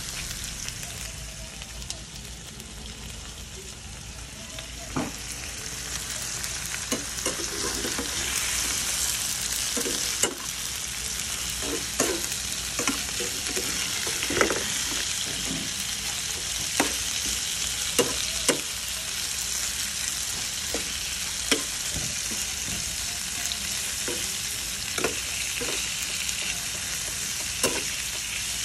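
Shell-on shrimp and garlic sizzling in a frying pan, growing louder a few seconds in. A metal slotted spatula clinks and scrapes against the pan every second or two as they are stirred.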